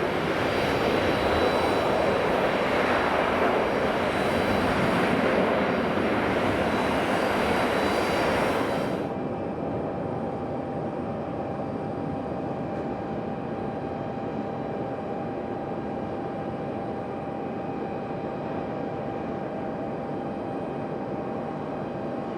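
Jet airliner engines running loud and steady, cutting off abruptly about nine seconds in to a quieter steady engine hum with a faint thin whine.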